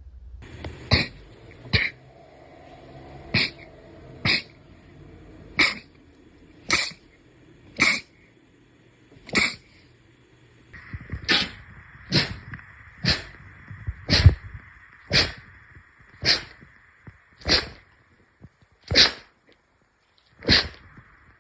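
A long series of short, sharp sneezes, about one a second, seventeen in all.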